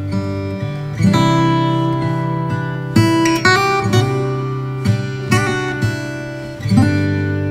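Background music on acoustic guitar, chords strummed and left to ring, with a new chord every second or two.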